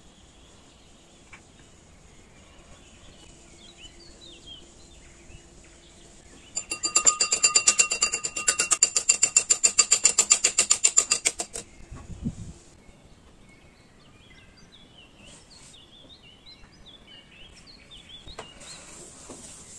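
Fork beating an egg in a small glass bowl: rapid, evenly spaced metal-on-glass clinks, several a second, with the bowl ringing, for about five seconds in the middle.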